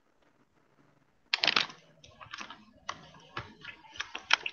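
Irregular clicks, taps and rustling of a laptop or webcam and a notebook being handled close to the microphone, starting after about a second of quiet.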